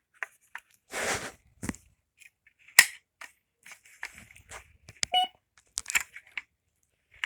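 Sharp plastic clicks and rustling from handling a Kidde i9040 ionization smoke alarm while it is being switched on. There is a longer rustle about a second in and a loud single click near three seconds.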